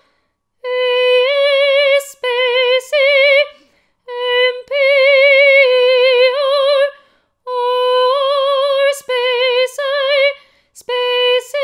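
A woman singing solo in a high voice with a wide, even vibrato, holding notes that move between two close pitches, in short phrases with brief pauses between them.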